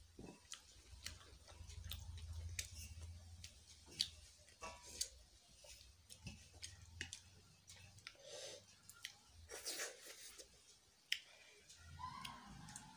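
Quiet eating sounds: scattered faint clicks and scrapes of fingers gathering rice grains on a metal plate, with soft chewing.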